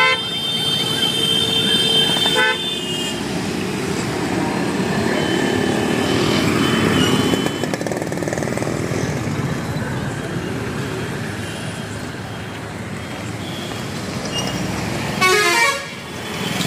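Road traffic passing: cars, motorbikes and a truck going by, with vehicle horns honking for the first couple of seconds and again briefly near the end.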